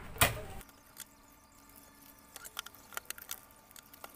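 A sharp knock about a quarter of a second in, then faint crinkling and small ticks of a white wrapper being cut open and handled during unpacking.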